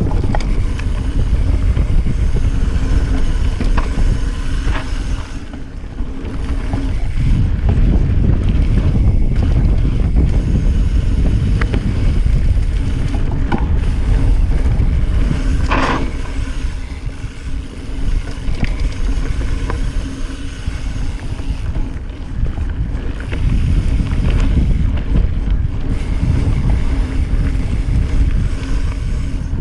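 Wind buffeting an action camera's microphone on a fast mountain-bike descent, over the rumble of the Cannondale F-Si's tyres on a dirt trail and the rattle of the bike. Scattered light clicks, and one sharper knock about sixteen seconds in.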